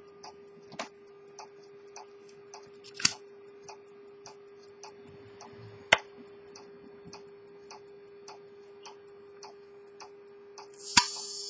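Steady ticking, a little under two ticks a second, over a faint steady hum, with two sharper clicks about three and six seconds in. Near the end a loud click sets off the minute repeater pocket watch, and its hammers begin striking the gongs.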